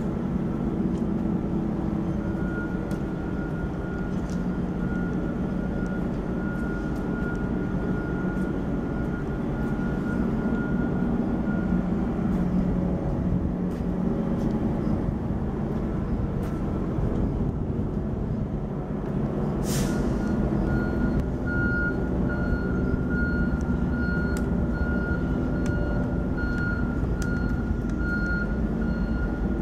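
Metrolink commuter train rolling slowly past at close range, with a steady low diesel rumble and wheel noise. A high steady tone sounds through much of it, pulsing like a warning beep in the later part. A short, sharp air hiss comes about two-thirds of the way through.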